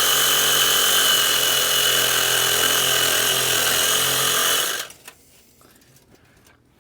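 Handheld power tool running steadily at full speed with a high whine, cutting off abruptly about two-thirds of the way through, followed by a few faint knocks.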